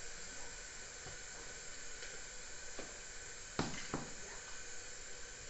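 Faint steady sizzling of food frying in oil in a pan, with two light clicks about three and a half seconds in.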